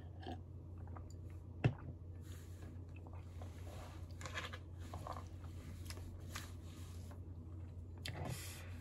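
Quiet mouth sounds of a person sipping and swallowing milk, then soft breaths, over a steady low hum. One sharp knock comes a little under two seconds in.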